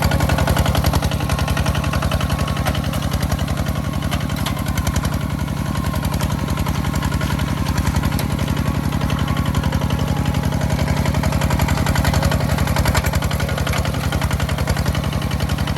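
Farm machine's engine running steadily, with a fast, even firing beat and no change in speed.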